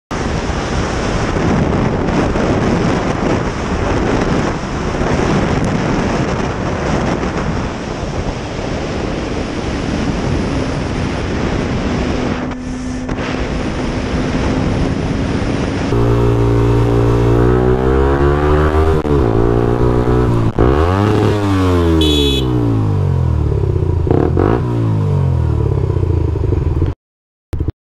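Motorcycle riding fast, its engine mostly buried under heavy wind rush on a helmet-mounted camera. About two-thirds of the way in this gives way to a motorcycle engine heard clearly at lower speed, its pitch falling and rising as the bike slows and accelerates again. The sound cuts out briefly near the end.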